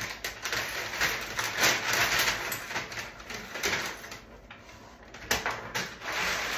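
Irregular rustling and clattering of objects being handled and moved, with a few sharp knocks, the loudest a little after five seconds in.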